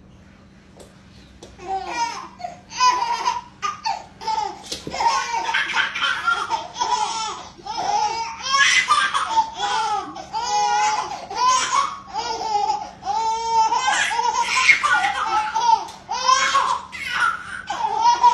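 Two babies laughing in repeated high-pitched peals and squeals while a dog plays with them, starting about a second and a half in.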